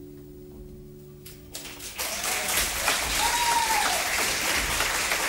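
A sustained mallet-instrument chord fades away, then about a second and a half in a crowd's applause and cheering starts up and carries on.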